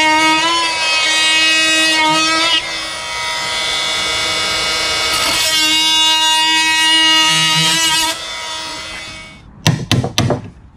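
Makita cordless oscillating multi-tool buzzing steadily as its blade plunge-cuts into a wooden plank, the pitch wavering as the blade bites; it stops about eight seconds in. Near the end a hammer strikes a chisel about four times in quick succession.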